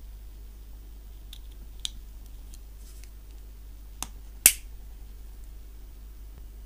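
Plastic model kit parts being pressed together by hand: a few light clicks, then one sharp snap about four and a half seconds in as the chest halves seat together.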